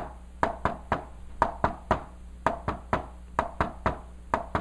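Quick knocking taps in tight groups of three, about one group a second, imitating the galloping rhythm of a third heart sound (S3, the "Kentucky" gallop), beat by beat S1, S2, S3.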